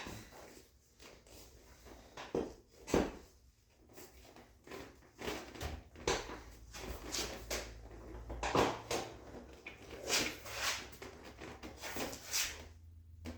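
Motorcycle seat and its mounting hardware being handled and fitted: irregular knocks, clunks and rubbing, with a sharper knock about three seconds in.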